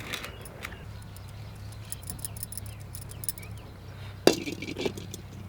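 Utensils clinking and tapping: a run of small clinks, then a louder knock with a short ring about four seconds in and a softer knock just after.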